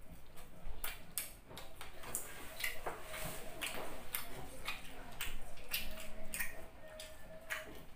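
Close-miked chewing of fried pork with the mouth closed: a quick, irregular run of wet clicks and smacks, a few each second.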